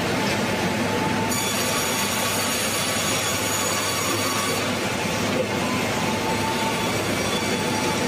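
Band sawmill cutting through a log on its carriage: steady machinery noise, with a high-pitched whine from the blade starting about a second in.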